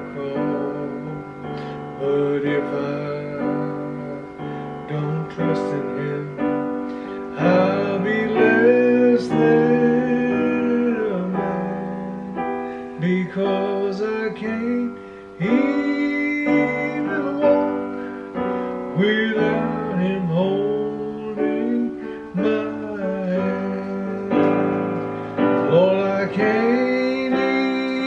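A man singing a slow gospel song while accompanying himself with chords on a digital piano.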